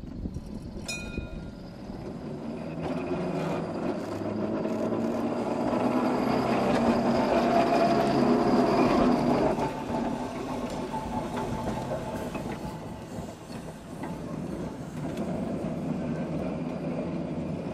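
W2-class electric tram running along the track: wheels and running gear with a low humming tone. It grows louder as it passes close, about eight to nine seconds in, then drops back as it moves away.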